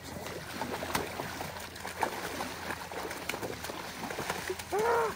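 Water splashing and sloshing as a person in waders wades quickly through shallow river water at the bank, over the steady wash of the river. Near the end there is one short, loud cry that rises then falls in pitch.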